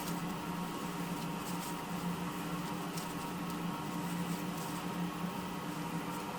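Coal forge fire with its air blower running: a steady low hum with faint scattered crackles.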